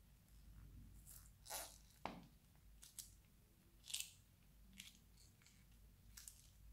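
Thin plastic piping bag crinkling in a handful of short crackles as it is squeezed and handled, the loudest about four seconds in.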